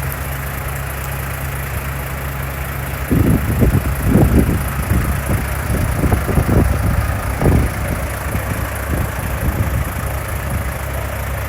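Diesel engine of a Komatsu long-reach excavator running steadily, with louder, uneven rumbling surges from about three seconds in.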